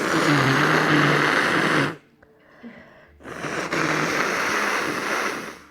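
Two long, congested nose blows into a tissue from a head cold, each about two seconds, the first with a low honking buzz.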